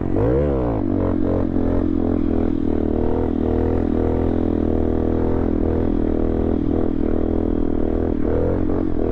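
Honda Grom's small single-cylinder four-stroke engine revving up and dropping back within the first second, then running steadily under way, with the revs rising again near the end.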